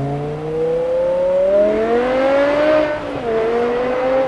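BMW M5 E60's S85 5.0-litre naturally aspirated V10 accelerating hard away, its exhaust note climbing steadily in pitch. About three seconds in it drops sharply at an upshift, then climbs again in the next gear, echoing in a road tunnel.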